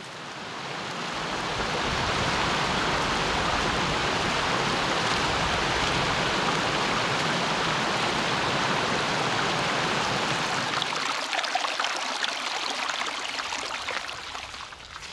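Rushing water of a river or stream, a steady rush that swells in over the first couple of seconds. About eleven seconds in the deep part drops away, leaving a lighter splashing that fades out near the end.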